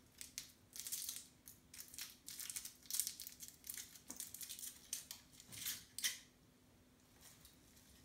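OXO vegetable stock cube being unwrapped from its foil and crumbled between the fingers: a run of dry crinkling and crackling that stops about six seconds in.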